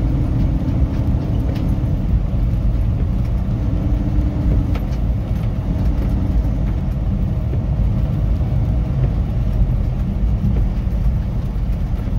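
Steady low drone of a semi truck's engine and tyre noise heard from inside the cab, cruising on a wet highway.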